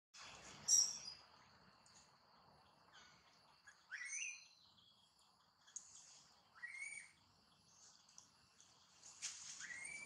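Infant long-tailed macaque crying: short squeals that rise steeply and level off, about four seconds in, near seven seconds and near the end. Birds chirp around it, with a sharp high chirp just under a second in and a steady high tone throughout.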